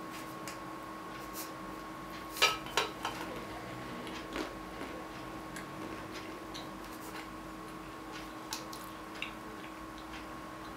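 Salted peanuts tipped from a metal tin into the mouth and chewed: scattered crisp clicks and crunches, the loudest a quick cluster about two and a half seconds in, over a faint steady hum.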